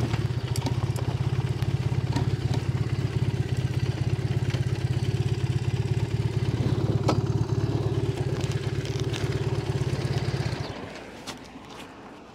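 2010 Triumph Bonneville's air-cooled parallel-twin engine idling steadily, then switched off about ten and a half seconds in. A few light clicks follow.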